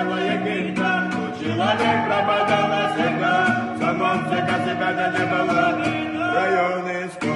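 Slowed-down remix of a Russian rap track: a sung melody over a beat with regular high ticks.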